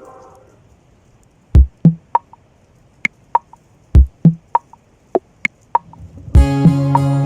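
Background music: a track fades out, then a sparse beat of deep kick-drum thumps and pitched wood-block clicks plays. Near the end a full arrangement with sustained bass and melody comes in.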